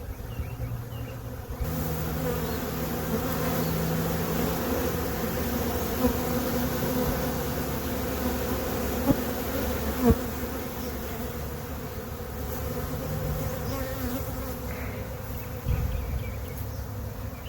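A swarm of honey bees buzzing steadily, many bees in flight around a freshly hived nuc box, with a couple of brief taps partway through.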